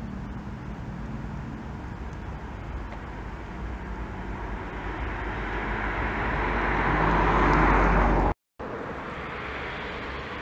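An Embraer 170 jet's twin General Electric CF34 turbofans running as the jet taxis down the runway. A rushing jet noise swells over several seconds, breaks off abruptly in a short gap, then comes back quieter and steady.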